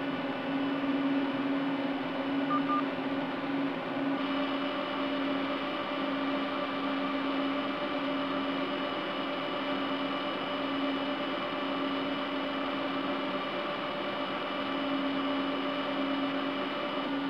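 Cooling fans of a Cisco Catalyst 5509 switch chassis running steadily while it boots: a constant whir with a hum and a steady whine, the whine getting stronger about four seconds in.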